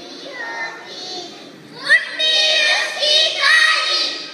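A children's choir singing together, softer at first and louder from about halfway through.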